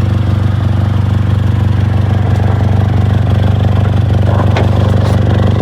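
Four-cylinder 2.4 L engine of a 2006 Honda Accord idling steadily, a fast even puffing in its exhaust note from an exhaust leak at a metal rod welded onto the exhaust. A short click about four and a half seconds in.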